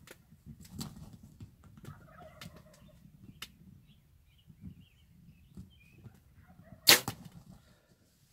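A bow shot from inside a ground blind at a Rio Grande turkey: one loud sharp crack of the release about seven seconds in, with a second smaller crack a split second later. Before it come small faint clicks and rustles and soft calls from the turkeys.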